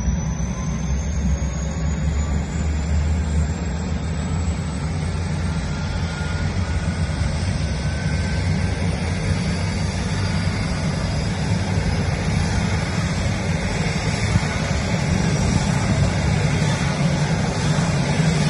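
Bell 430 helicopter's twin turboshaft engines spooling up during start, a whine rising slowly and steadily in pitch over a low rumble as the main rotor turns at low speed.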